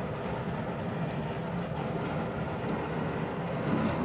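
Packaged air conditioning unit running with a steady mechanical drone. Its three-phase blower motor is now turning the right way, after two phases were swapped, and is drawing 7.4 amps.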